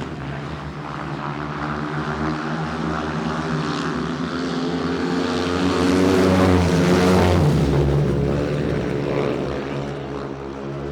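An engine running and passing close by: it grows to its loudest about six to seven seconds in, then its pitch drops and it fades as it moves away.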